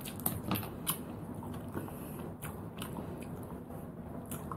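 Close-up eating sounds: chewing, with a few sharp little clicks as cooked sea snail shells are handled and the meat is picked out with a toothpick.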